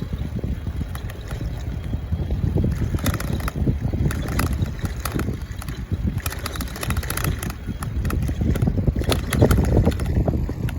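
Wind buffeting the microphone outdoors, a gusty low rumble, with a few faint clicks in the middle.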